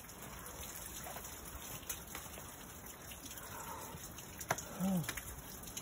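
Quiet outdoor background with faint rustling and a couple of soft taps, and a brief low voice sound, a short grunt, near the end.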